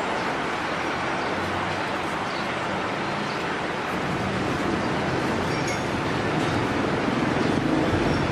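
Steady street ambience: an even wash of traffic noise with no single sound standing out.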